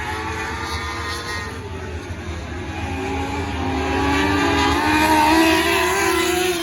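Several micro lightning sprint cars racing, engines revving at high pitch with several engine notes overlapping, growing louder and higher about five seconds in as the pack comes past.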